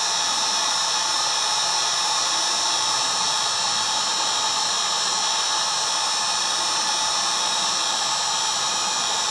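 Electric heat gun running steadily, blowing hot air with a steady whine, shrinking heat-shrink tubing down over a soldered wire joint.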